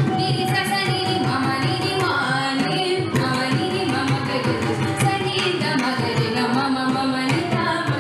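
A female Carnatic vocalist singing a keerthanam, her voice gliding and ornamenting around held notes, with drum accompaniment.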